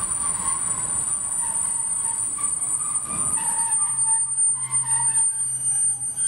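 Freight train wagons rolling past close by, with wheels squealing in a wavering tone. In the second half there are a few sharp clicks as the wheels cross rail joints. A thin, steady high tone sits over it all.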